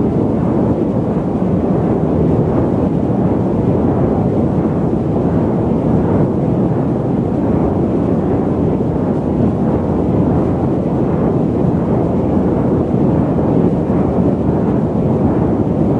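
Steady, even low rumble of an airliner in flight, with no changes.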